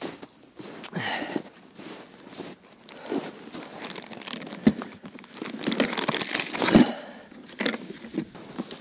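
Snow crunching underfoot and a plastic ice-fishing box being handled. There are irregular crunches and scrapes, and a couple of dull knocks in the second half, the loudest nearly seven seconds in.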